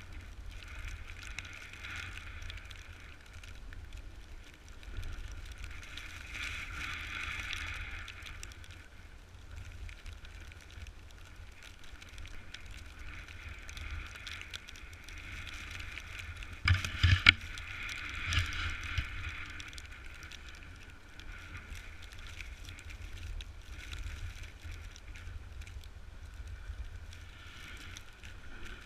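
Snowboard sliding and scraping down a snowy slope, with a hiss that swells and fades as the board turns, over a steady rumble of wind on the microphone. A few sharp knocks come a little past halfway, the loudest sounds here.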